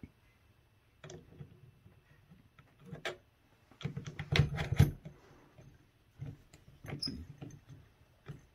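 Small metal camera accessories clicking and scraping as a cold-shoe adapter and mount are fitted onto a metal camera cage: scattered clicks, with a dense run of clicks about four seconds in.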